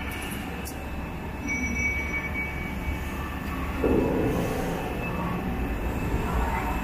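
Four-station bolt former (cold heading machine) running: a steady heavy mechanical din over a low hum, swelling louder about four seconds in.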